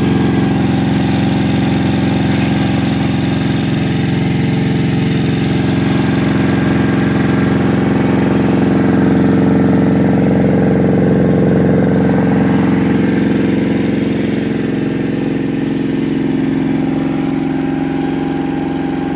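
Small 1200-watt portable petrol generator running steadily at constant speed, its engine note even and unchanging.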